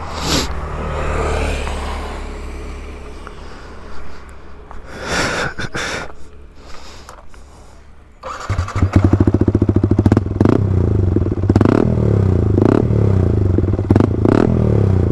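Yamaha R15 V3's single-cylinder engine through an aftermarket Akrapovic exhaust, heard at low level for the first several seconds. About eight seconds in it becomes much louder, with a steady idle and several short throttle blips.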